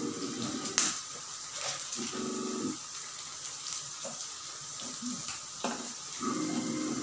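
Pork sizzling on a tabletop Korean BBQ grill, a steady hiss, with a couple of sharp clinks of utensils on plates and dishes.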